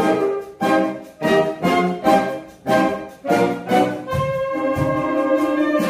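Saxophone ensemble playing live: a run of short, detached chords in quick succession, then a sustained chord held from about four seconds in.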